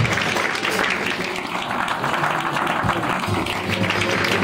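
Many hands clapping in a dense patter, with an acoustic guitar playing faintly underneath.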